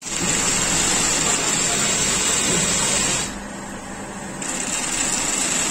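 Industrial sewing machine running steadily as it stitches a fabric shoe upper. It eases off for about a second just past the middle, then runs again.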